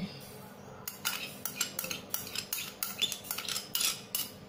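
A metal utensil clinking and scraping against a bowl, about three sharp clicks a second starting about a second in, as beaten egg is added to the floured chicken wings and mixed in.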